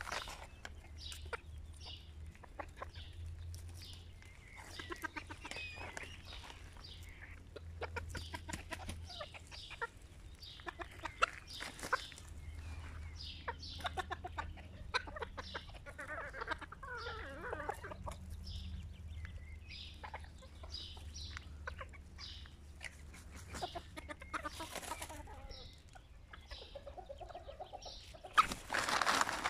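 Serama bantam chickens clucking and calling on and off, with many short sharp clicks as they peck at gravel. A louder burst comes near the end.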